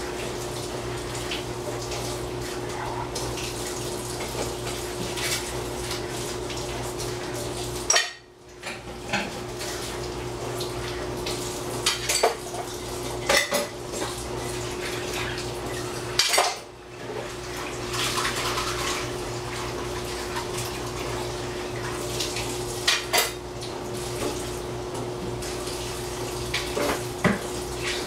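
Pots, dishes and utensils clinking and knocking during washing up at a sink, with several sharp clatters and water running at times, over a steady hum.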